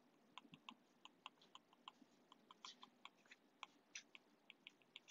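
Faint, irregular clicks of a stylus tip tapping on a tablet's glass screen during handwriting, about five a second.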